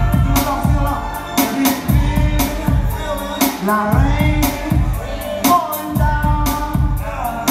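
Live music: a voice singing over a beat with deep bass and regular drum hits.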